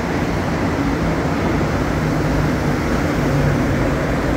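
A rubber-tyred Montreal Metro train running, heard as a steady noise with a faint low hum.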